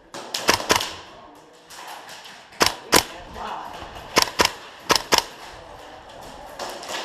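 Airsoft rifle shots fired in quick pairs: four double taps of sharp cracks, spread over the few seconds.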